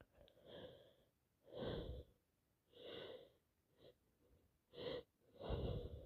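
A person breathing heavily and sniffing: six noisy breaths about a second apart, the fourth and fifth short and sharp.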